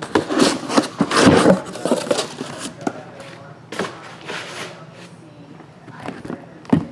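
Cardboard case and shrink-wrapped card boxes being handled: crinkling and scraping for the first couple of seconds, then a few short knocks as boxes are set down on the table mat.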